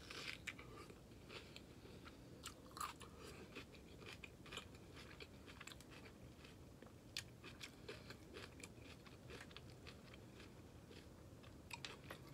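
Faint close-up chewing of a baked stuffed bell pepper: a bite near the start, then steady chewing with many small crunches and wet mouth clicks.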